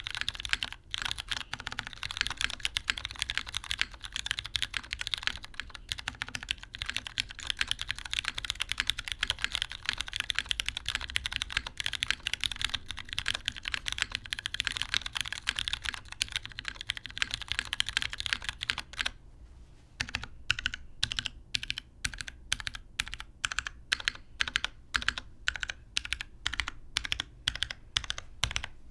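Typing on a custom 65% mechanical keyboard with lubed MX Brown tactile switches, a carbon fiber plate and GMK keycaps. Fast, continuous keystrokes give way after a short pause about two-thirds of the way through to slower, evenly spaced single key presses, about two to three a second.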